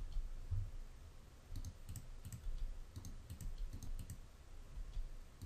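Faint, scattered clicks of a computer keyboard and mouse as keys are pressed and vertices are grabbed and placed, with a few soft low thumps between them.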